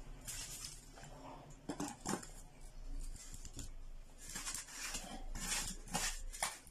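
A glass jar packed with salted lemons being picked up and handled, giving a series of short scrapes and light clinks of glass and shifting contents.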